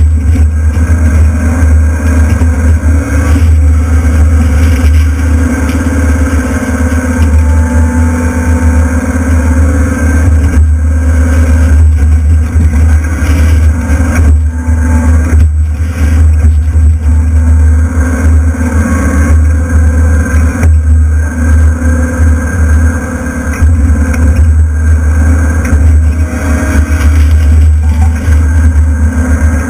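Excavator's diesel engine running loudly and steadily as the arm works, with scattered cracks and crashes of wood framing and debris breaking and falling.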